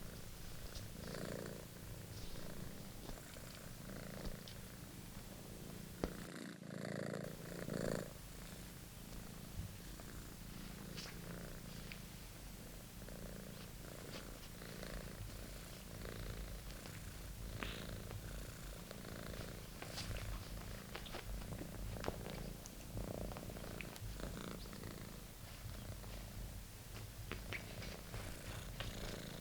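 British Shorthair kitten purring steadily throughout, with scattered light clicks and rustles, a sharper knock about six seconds in and a louder rustling patch just after it.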